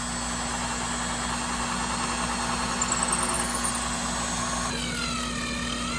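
Power drill driving screws into a wooden frame: a long, rough run of the motor, then near the end a second run with a clear whine that dips in pitch and levels off.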